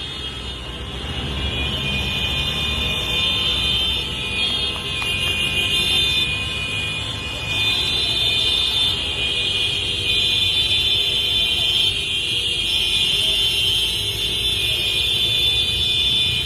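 Many car horns sounding together in a continuous, overlapping blare of protest honking over idling traffic, swelling louder about eight seconds in.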